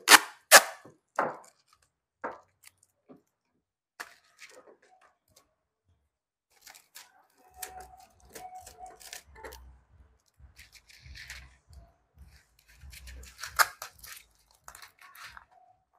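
Seed packets and their packaging being handled: sharp plastic crackles and clicks, loudest in the first second or so, then sparse softer crackling and rustling.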